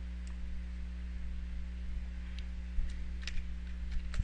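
Steady electrical mains hum, with about five sharp clicks in the second half.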